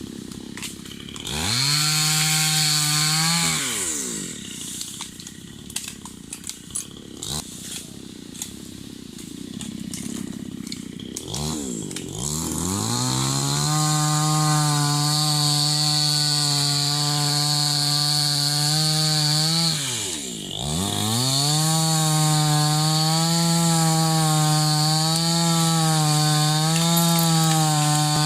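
Chainsaw revved up briefly about a second in, then dropping back, then revved to full speed again about halfway and held. Its pitch wavers slightly as it works through wood, with a short dip near the end.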